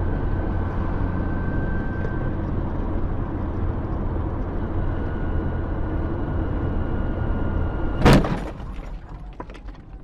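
Steady car road and engine noise heard from inside the cabin, cut by one loud bang of a collision about eight seconds in. After the impact the road noise drops away, leaving a few scattered knocks and rattles.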